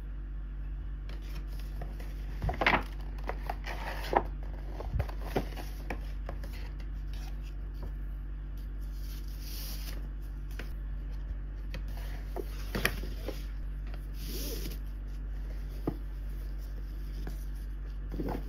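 Paper packaging being handled: tissue paper and a paper shopping bag rustling and crinkling in short spells, with sharp crackles and light taps among them. A steady low hum sits underneath.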